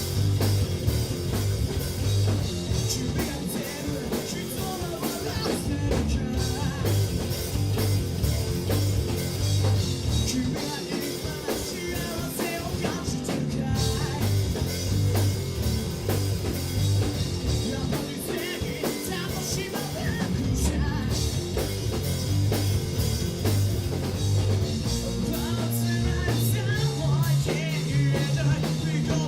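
Rock band playing live: a singer over electric guitar, bass and drum kit, continuous and steady in loudness.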